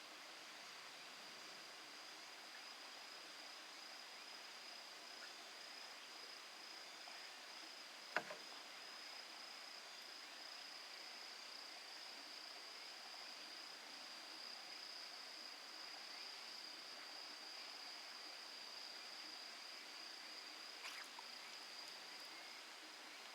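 Faint, unbroken high-pitched trill of insects such as crickets, with one sharp click about a third of the way in.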